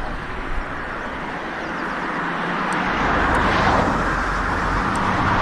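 A road vehicle driving past, its tyre and engine noise swelling to a peak about midway and easing off toward the end.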